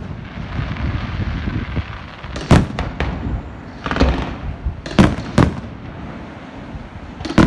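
Fireworks display: about six sharp bangs of shells bursting overhead, irregularly spaced, with crackling between them.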